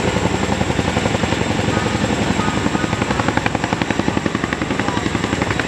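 Boeing CH-47 Chinook tandem-rotor helicopter passing close, its rotor blades beating in a fast, steady chop over a loud rushing noise, with a thin high steady whine above it.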